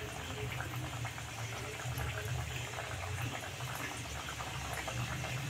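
Mathri dough pieces frying in oil on a medium-low flame: a steady soft sizzle with fine crackling, the gentle sound of oil kept deliberately not too hot so the mathri cook slowly and stay crisp.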